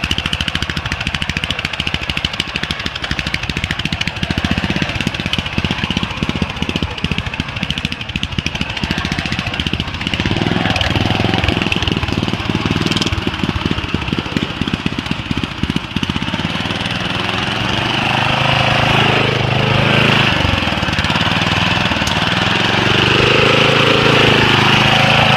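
Riding lawn mower's small engine running as the mower is driven, with a rapid, rattling firing beat. In the last third the engine's pitch rises and falls as it revs up and down.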